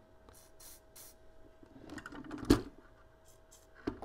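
Short hissing bursts from an aerosol can of CRC precision electronics lubricant, sprayed onto a toy train motor's brushes. About two and a half seconds in there is a rattle of handling that ends in a sharp knock, and another knock comes near the end.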